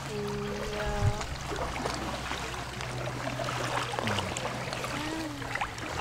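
Water trickling and dripping around paddled inflatable canoes in a calm, shallow channel, with small splashes from the paddle blades. A held pitched tone, like a hummed or sung note, sounds for about the first second.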